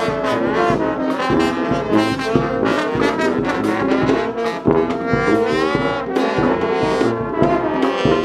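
Street-band trombones playing a lively brass phrase, several notes sounding together with sharp, rhythmic attacks.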